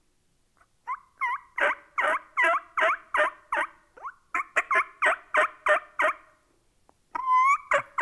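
Diaphragm mouth turkey call blown in turkey yelps, each note breaking from high to low. A run of about eight evenly spaced yelps is followed by a short pause, then a quicker run, then a longer call near the end.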